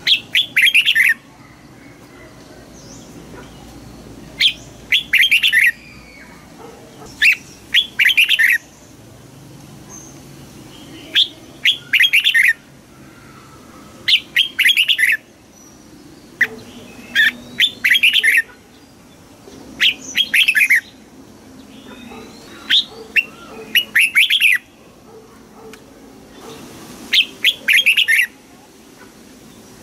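Red-whiskered bulbul singing: about ten short, rapid song phrases of a second or so each, repeated every two to three seconds.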